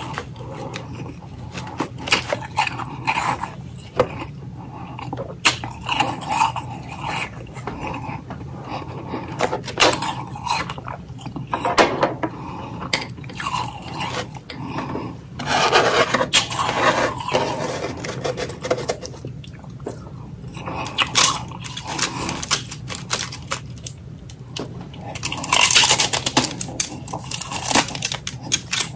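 Close-miked chewing and crunching of freezer frost and ice, with irregular sharp cracks and crackling crunches, heaviest in two stretches in the middle and near the end.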